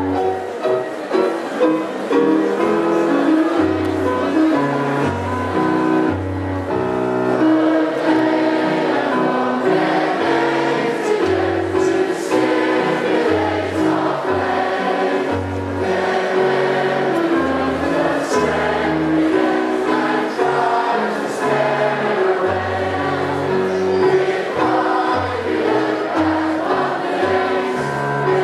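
Choral music as a soundtrack: a choir singing held chords over a slowly stepping bass line.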